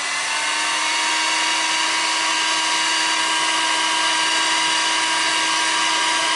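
ELX electric heat gun on speed 2, running steadily: a loud rush of air with a steady whine, still coming up to speed in the first second. It is blowing hot air to shrink heat-shrink tubing over soldered wire joints.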